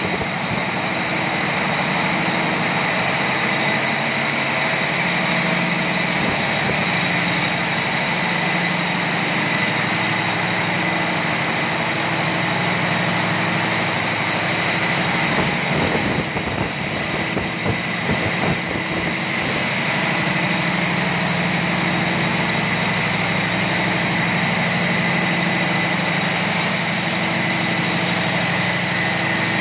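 Niigata marine diesel engine running steadily in a ship's engine room: a dense, loud mechanical din with a steady high-pitched whine above it. Around the middle there are a few seconds of irregular knocks.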